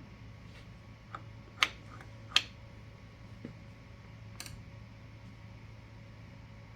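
Small sharp clicks and taps of a hand tool and metal screws on a reloading press's plastic case-plunger assembly as it is tightened down, about six clicks in the first half, two of them louder, over a low steady hum.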